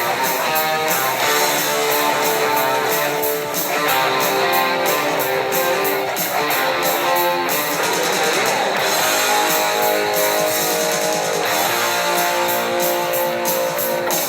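Guitar-driven background music with a strummed guitar and a steady beat.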